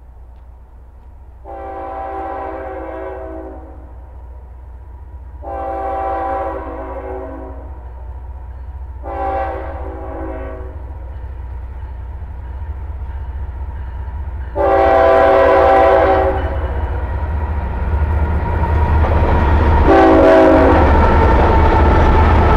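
Freight locomotive horn sounding the grade-crossing signal as the train approaches: two long blasts, a short one and a long one, then one more short blast. The low rumble of the locomotives' engines and wheels on the rails rises underneath in the last few seconds as the train arrives and passes.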